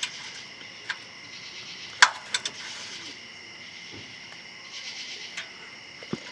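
Crickets chirping steadily, with a few separate sharp clicks and knocks, like a tool handled against metal, scattered through.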